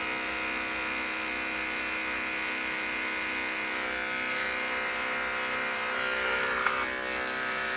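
Andis UltraEdge electric dog clipper with a number 10 blade running steadily as it clips a dog's coat against the grain, a steady buzzing hum. A small click comes near the end.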